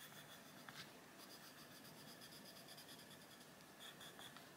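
Faint scratching of a Posca coloured pencil being stroked over the paper of a colouring book.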